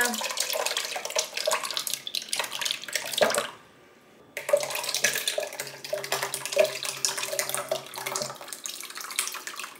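Thick, lumpy lime gelatin and cottage cheese mixture pouring from a glass bowl into a metal bundt pan, a wet, gloopy glugging and plopping. It comes in two pours with a short break about three and a half seconds in.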